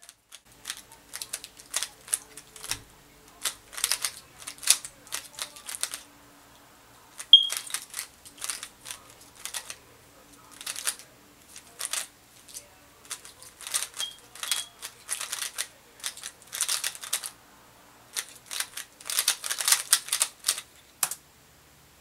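A plastic 3x3 speedcube, the Rubik's Speed Cube made by GAN, being turned fast in a timed solve: rapid runs of clacking layer turns broken by short pauses, stopping about a second before the end.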